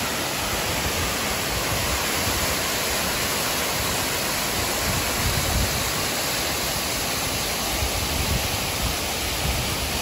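A river waterfall pouring over rock ledges: a steady, even rush of falling water.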